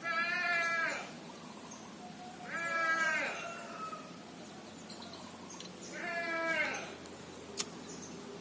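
An animal gives three bleat-like calls, each about a second long and a few seconds apart. A single sharp click sounds near the end.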